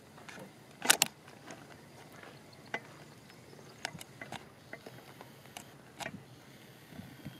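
A few irregular short clicks and light taps over a faint background. The loudest is a sharp double click about a second in.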